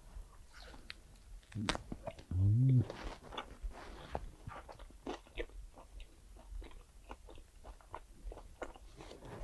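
A person chewing grilled meat (shashlik), with irregular wet mouth clicks and smacks. About two and a half seconds in there is one short voiced hum.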